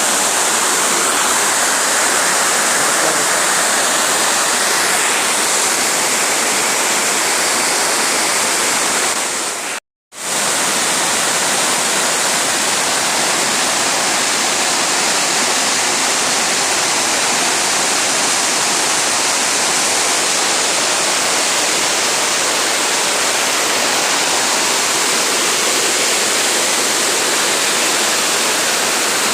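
Steady rushing of a wide waterfall, Spread Eagle Falls, falling water heard as an even noise; the sound cuts out for a moment about ten seconds in.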